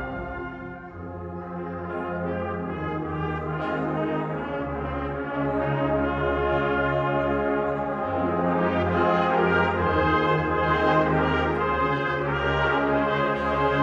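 Agrupación musical brass band playing slow, sustained brass chords over a deep bass line. The music swells louder about five seconds in and again around eight seconds.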